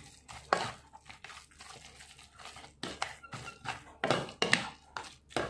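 Spatula and utensil tossing sauced instant noodles in a bowl: irregular scraping and knocking against the bowl's side, a few sharp knocks spaced unevenly.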